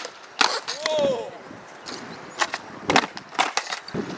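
Skateboard on smooth concrete: a string of sharp clacks, the tail popping and the board slapping down, with the wheels rolling in between. A short voiced shout rises and falls about a second in.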